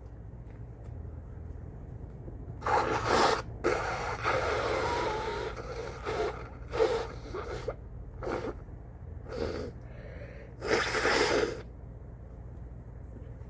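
A person with a cold sneezing again and again, with gasping breaths between the sneezes: a string of short sharp bursts, the loudest about three seconds in, about seven seconds in and near the end.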